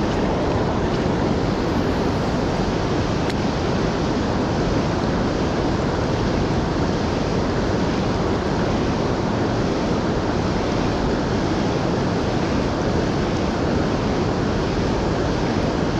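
Steady rush of fast-flowing river water, an even noise with no breaks.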